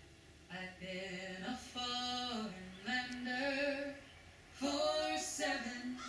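Music: a single voice singing slow, held notes, with a short pause in the middle.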